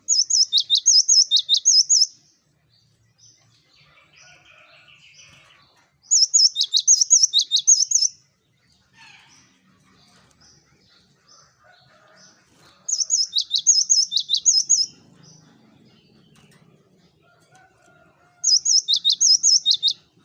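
Cinereous tit (gelatik batu) singing four loud bouts, each about two seconds of rapid, high, clear repeated notes, with fainter scattered chirps between the bouts.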